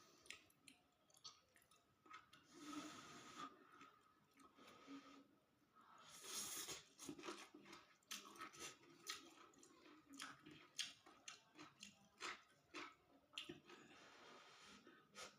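A person eating fried rice vermicelli with tofu and water spinach close to the microphone: soft chewing and many small mouth clicks, with a few short louder spells of noise.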